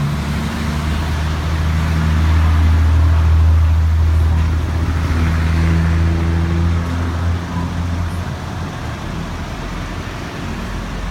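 A motor vehicle's engine running close by: a steady low hum that swells over the first few seconds and eases off after about seven seconds.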